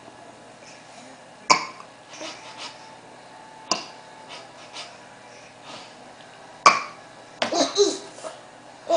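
Small child hiccuping three times, each a short sharp catch, two to three seconds apart, then a brief babble near the end.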